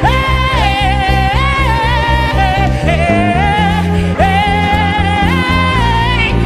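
Live gospel worship music: a single held, gliding sung melody with no clear words, over bass and chords that pulse steadily.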